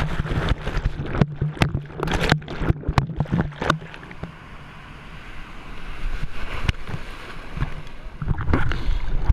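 Sea water splashing and sloshing over a waterproof action camera in the surf, with many sharp slaps and knocks of water on the housing in the first few seconds. The sound goes quieter and duller around the middle, then the wash of the waves swells again, with a few more slaps near the end.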